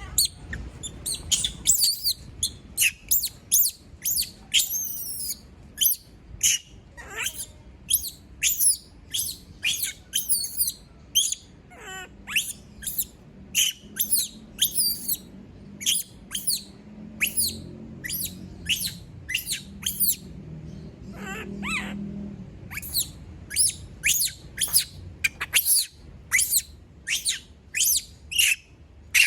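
A pet monkey screaming over and over after being left alone, a distress call: short, very high-pitched cries, each falling steeply in pitch, about one or two a second.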